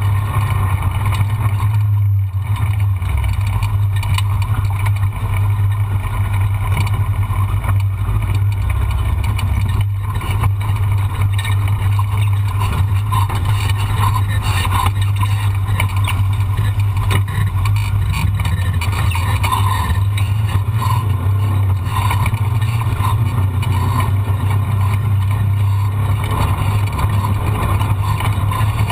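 A vehicle engine running steadily at an even pitch, with no revving.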